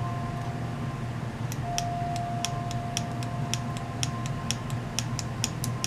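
Small tactile push-button switch from a Mercedes ML320 key-fob remote's circuit board, pressed over and over: a quick run of crisp clicks, about four a second, starting about a second and a half in. The sharp click is the sign of a working switch, unlike the remote's worn open button, which barely clicks.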